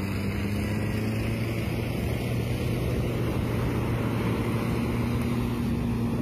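Heavy surf breaking and rushing up the beach, with wind buffeting the microphone and a faint steady low hum underneath.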